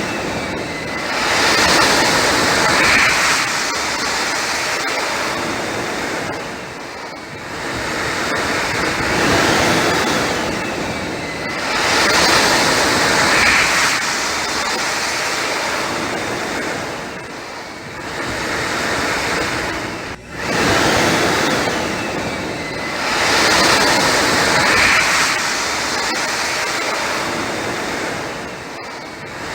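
Electric hand dryer blowing a loud, steady rush of air that swells and eases every five or six seconds, with a brief drop about twenty seconds in before it comes back.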